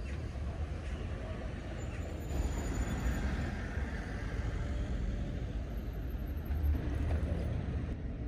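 Road traffic on a city street: a steady low rumble with cars passing.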